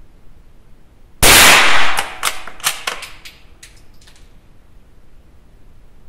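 A single .22LR shot from a Remington 512 Sportmaster rifle about a second in, with a short echo, followed by several faint clicks. Another shot begins right at the end.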